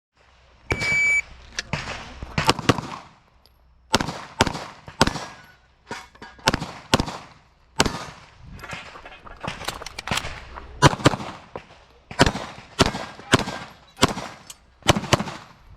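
A shot timer's start beep, then a semi-automatic pistol fired in quick pairs and short strings with brief pauses between, as a shooter runs an IPSC handgun stage.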